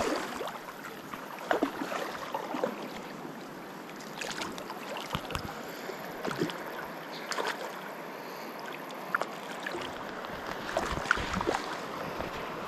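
River water running steadily, with scattered small splashes and knocks of water close by.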